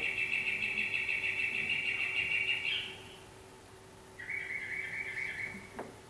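A recording of a mockingbird singing at night, played over speakers: a long rapid trilled phrase, then after a short pause a lower trilled phrase, with an echo behind the song.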